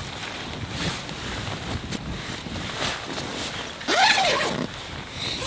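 Tent door zipper being pulled closed, with nylon fabric rustling; about four seconds in comes a loud zip that sweeps up and back down in pitch.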